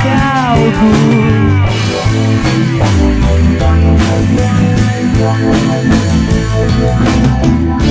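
Psychedelic rock recording: electric guitar over a drum kit, with bending guitar notes in the first second.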